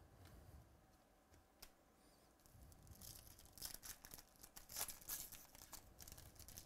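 Foil wrapper of a baseball card pack being torn open and crinkled by hand. It is faint at first, then quick, sharp crackly rustles begin about three seconds in.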